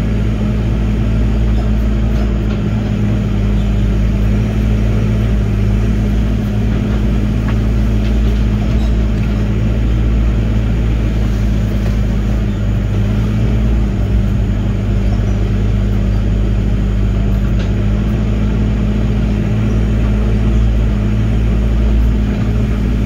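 Diesel engine of a Link-Belt 145 excavator running steadily at a constant speed.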